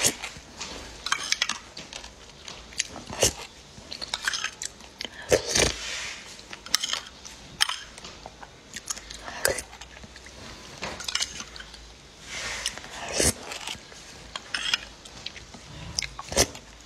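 Small metal spoon clinking and scraping against a glass cup, with wet slurps as a thick, stretchy gel drink is sucked off the spoon. The clinks come as many short, sharp ticks scattered through, and the slurps as a few longer hissing sucks.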